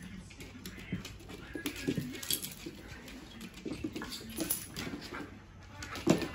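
A puppy and a larger dog playing on a hardwood floor: scattered claw clicks and scrabbling, mixed with short low vocal noises from the dogs, and one louder noise near the end.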